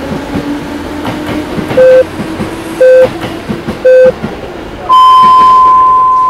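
Japanese time signal over a passing train: three short beeps about a second apart, then a long, higher tone that slowly fades. Under it the train runs with a steady rumble and a slowly rising whine.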